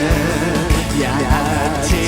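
Upbeat Thai pop music with a steady drum beat, about one beat every 0.6 s, and a sung vocal line.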